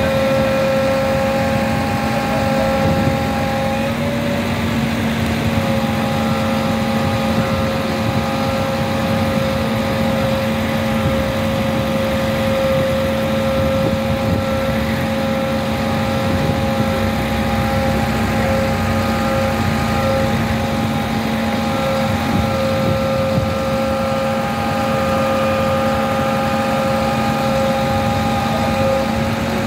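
JCB 3DX Plus backhoe loader's diesel engine running steadily while the backhoe arm's hydraulics work, lifting and lowering a concrete pipe on a strap, with a steady whine in several pitches over the engine.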